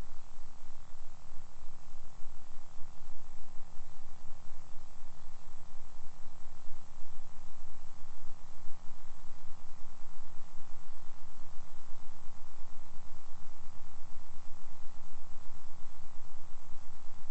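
A steady low hum with evenly spaced overtones, flickering quickly in level but never stopping.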